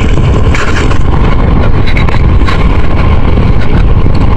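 Strong wind buffeting the microphone: a loud, ragged low rumble with a hiss over it.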